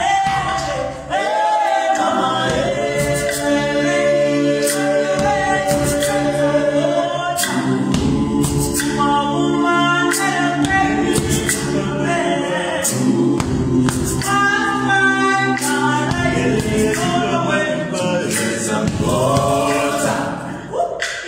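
Young men's voices singing a cappella in gwijo style: a lead voice over sustained group harmonies on 'oh oh oh' and 'yeah yeah' lines, with no instruments.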